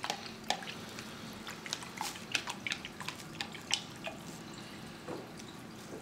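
Paintbrushes tapping and dabbing against a plastic paint palette and water cup: light, irregular clicks and drip-like plinks, several each second.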